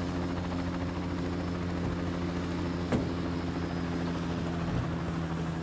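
Helicopter running steadily, a constant engine drone with a fast rotor pulse underneath; a single sharp click about three seconds in.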